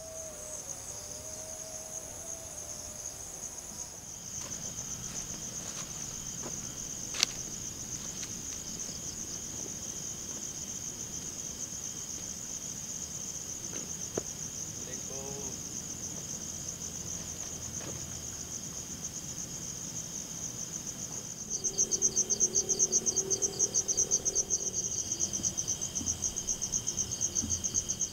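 Crickets chirring at night: a steady, fast-pulsing high trill that grows louder about 21 seconds in as more insects join. A single sharp click about 7 seconds in.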